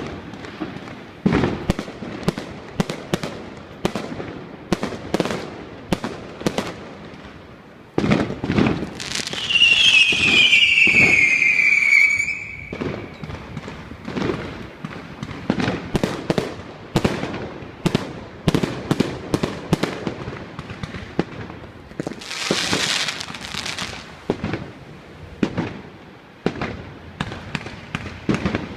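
Fireworks going off in an irregular string of sharp bangs and pops. About nine seconds in a whistling firework shrieks, falling in pitch for about three seconds, and near twenty-three seconds there is a brief hiss.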